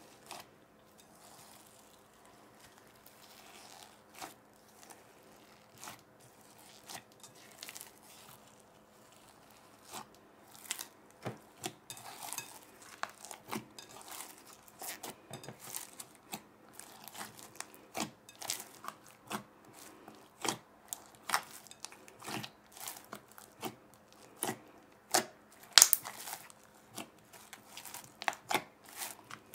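Hands kneading and squeezing glossy slime mixed with foam beads in a glass bowl: squelching crackles and sharp popping clicks, sparse at first and coming thick and fast from about ten seconds in.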